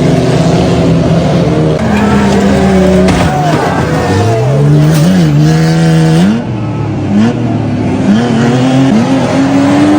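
Several demolition derby cars' engines revving at once, their pitches rising and falling against each other as the cars accelerate and back off.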